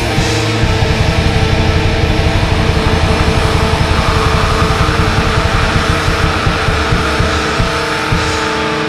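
Black metal song: distorted guitars over rapid double-bass or blast-beat drumming. Near the end the drums thin out to a few scattered hits and stop, leaving a sustained guitar chord ringing.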